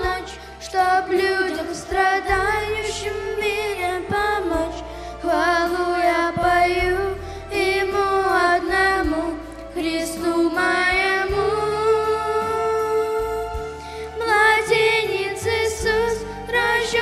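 A girl singing a Christmas song into a handheld microphone, with long wavering notes over an instrumental backing track that has a changing bass line.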